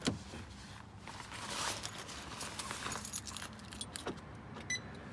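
Light clinks and rattles of handling around an open car door, with a knock right at the start, another small knock about four seconds in, and a brief high beep near the end.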